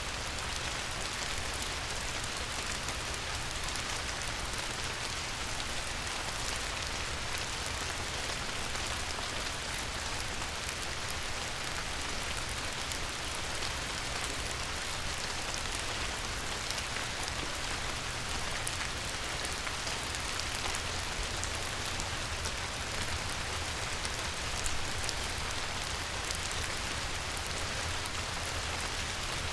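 Light rain falling on a river: a steady hiss of raindrops with fine individual pattering throughout.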